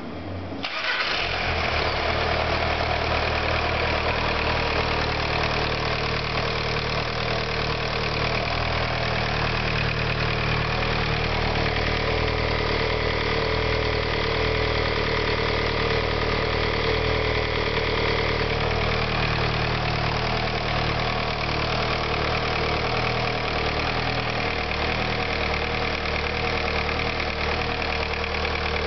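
VW Sharan engine starting about a second in, then idling steadily; its first start after an engine repair.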